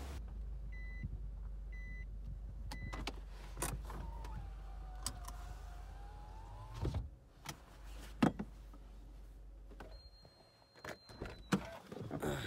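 Inside a car: a steady low engine hum, three short beeps, then an electric window motor whining for a few seconds. Near the end the hum stops, scattered clicks and knocks follow, and a high steady chime sounds.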